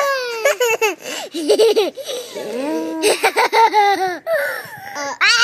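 Two young children laughing and squealing in high-pitched voices.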